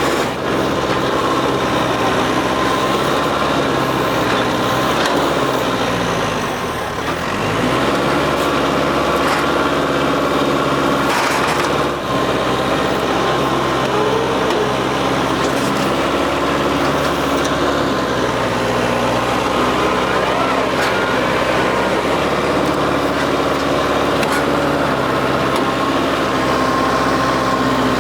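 New Holland WorkMaster 55 tractor's diesel engine running steadily under load. Its note dips briefly about seven seconds in, and there is a short sharp noise about twelve seconds in.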